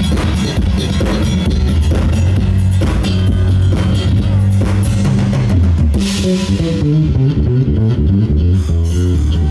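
A live rock band playing, with an electric bass guitar prominent over a drum kit and guitar. A cymbal crash comes about six seconds in, followed by a run of changing bass notes.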